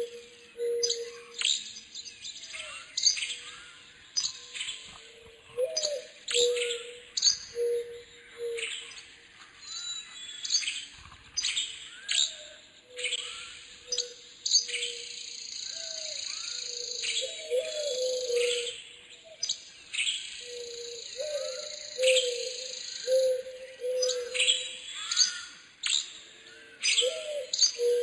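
Several birds chirping and singing, with many quick high chirps and sweeps over a lower call repeated again and again.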